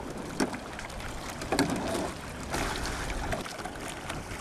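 Water sloshing and lapping against the hull of a small sailing dinghy under way, with a few light knocks, the clearest about a second and a half in.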